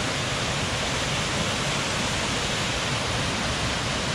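Small waterfall splashing, a steady rushing of falling water.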